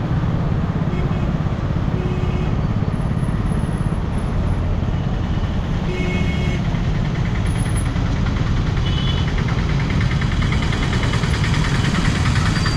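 Motorcycle riding in city traffic: steady, loud wind and engine rumble picked up by a helmet-mounted camera, with a few brief beeps from the surrounding traffic.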